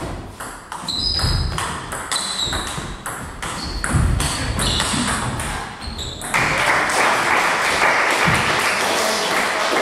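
Table tennis rally: the ball clicking in quick succession off bats and table, with players' feet thudding on the wooden floor. About six seconds in the rally ends and spectators applaud.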